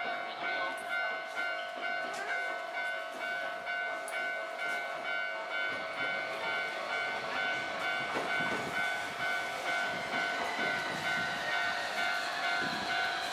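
Tokyu 300 series tram approaching and pulling into the station, its running and wheel rumble growing from about halfway in. A level crossing warning bell rings steadily throughout.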